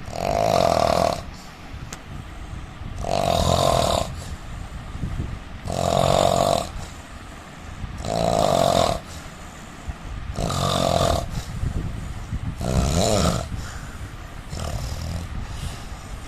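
A man snoring in a steady rhythm, one snore about every two and a half seconds. Six strong snores come first, and the last couple near the end are fainter.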